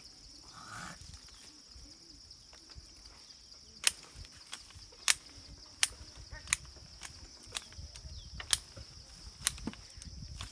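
Steady high-pitched insect drone, with sharp clicks or knocks at uneven intervals, roughly one a second, from about four seconds in.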